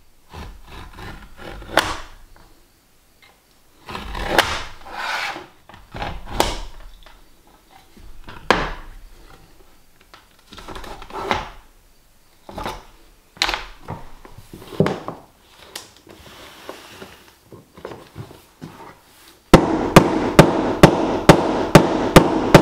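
Utility knife scoring a laminate floor plank in scraping strokes, with clicks and knocks as the board is handled and snapped along the cut. Near the end, a rubber mallet taps the planks into place in quick, even strikes, about three or four a second.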